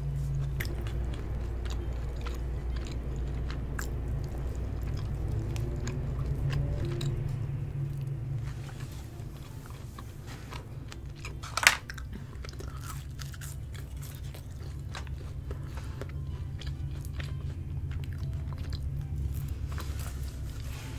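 Close-miked chewing of a McDonald's burger: wet mouth sounds with scattered small clicks, and one sharper click about twelve seconds in.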